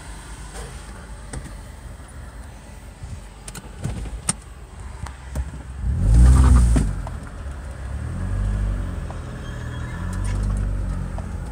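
Car engine heard from inside the cabin, surging as the car pulls away and rising twice more near the end. The loudest moment is a short engine-and-tyre surge about halfway through, with a few sharp clicks before it.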